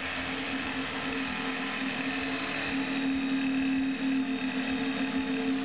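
Cordless 18-volt DeWalt reciprocating saw with a metal-cutting blade running steadily as it cuts through a rusted toilet tank bolt.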